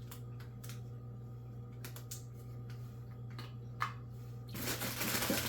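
Plastic filter parts being handled: a few light clicks and taps, then a rustle near the end, over a steady low hum.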